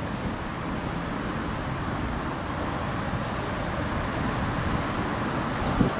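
Street traffic noise from cars and trams: a steady rumble that slowly grows a little louder, with a single sharp knock near the end.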